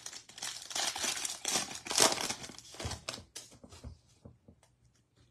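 Baseball card pack wrapper crinkling as it is torn open and handled, loudest about two seconds in, then a few lighter crackles.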